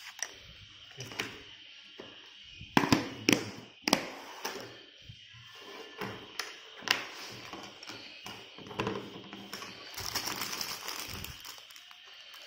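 Hand tools handled and set down on a desk, a few sharp clacks and knocks, then a plastic parts bag crinkling as scissors cut it open near the end.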